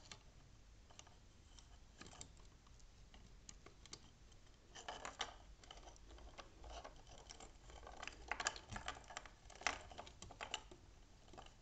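Faint scattered clicks and rustles of thin insulated wires being handled and twisted together by hand.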